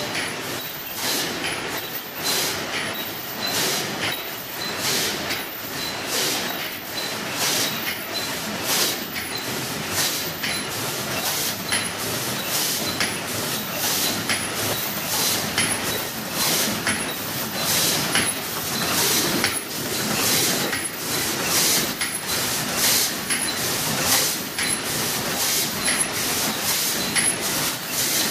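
Paper cup forming machine running in a steady production cycle, a rhythmic mechanical clatter at about two strokes a second.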